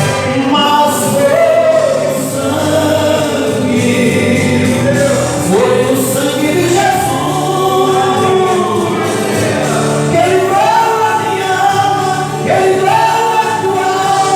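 Live gospel worship music from a church praise group: several voices singing a melody together over a steady instrumental accompaniment.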